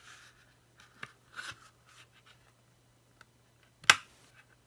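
Stiff plastic rugged phone case being pried apart by hand: faint scraping and small clicks, then one sharp snap about four seconds in as a tight-fitting part gives.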